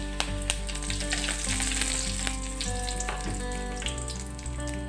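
Tempering (tadka) sizzling and crackling in hot oil in a kadai: mustard seeds, cumin, urad dal and dried red chillies frying with freshly added curry leaves and green pieces, with a steady sizzle and many small pops throughout.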